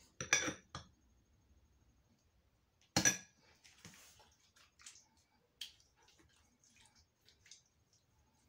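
A few sharp knocks and light clicks and clinks from things being handled: a cluster right at the start, the loudest knock about three seconds in, then scattered small taps.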